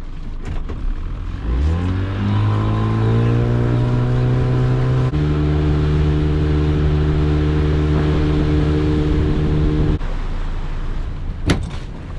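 A small fishing boat's engine throttling up: its pitch rises over a few seconds, then holds steady before cutting off abruptly. A single sharp click comes near the end.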